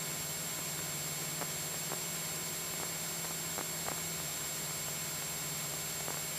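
Cockpit noise of a Cessna 172SP in cruise: a steady hiss over a low, steady engine hum, with a few faint ticks.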